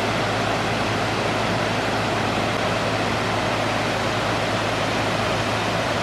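Steady rushing noise of a waterfall cascading down rock ledges, with a faint low hum underneath.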